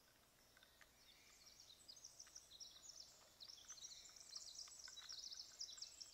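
Small birds singing in high, rapid chirps and trills. The song is sparse at first and grows dense from about a second in.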